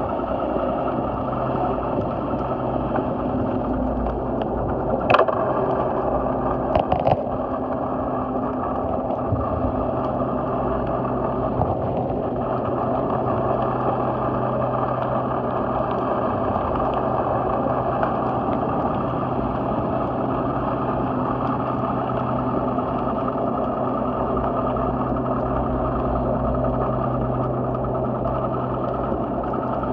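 Steady machine drone with a low hum, and a few sharp knocks about five and seven seconds in.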